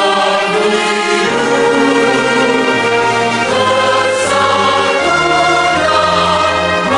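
Orchestral music with a choir singing long held chords that change every second or two.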